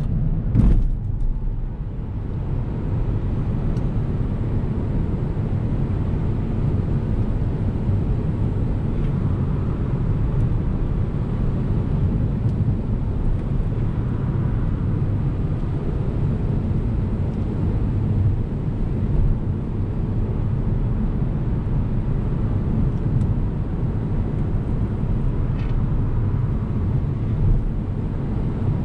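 Cabin road noise of an Opel Corsa-e electric hatchback driving at speed: a steady low rumble of tyres on asphalt, with no engine note. The car picks up to about 100 km/h and holds it. One sharp thump about half a second in.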